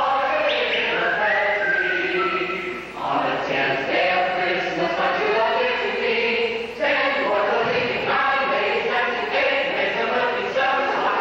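Choir singing, phrase by phrase, with brief breaks about three and seven seconds in.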